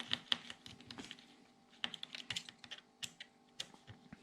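Light, irregular clicks and taps of small metal screws and hand tools against the RC car's parts during disassembly.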